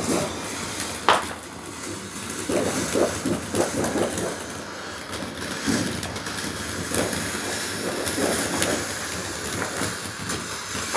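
Fireworks going off: a steady hissing rush with scattered pops and crackles, and one sharp crack about a second in.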